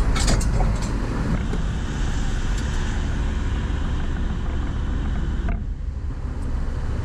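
1984 Dodge D50 pickup driving, heard from inside the cab: steady engine and road rumble with a few sharp rattling clicks in the first second. The hiss drops away suddenly about five and a half seconds in.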